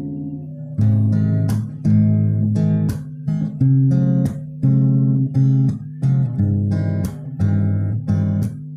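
Acoustic-electric guitar, heard through its preamp, strummed in a rhythmic pattern of chord strokes. A held chord fades out at first, and the strumming starts about a second in.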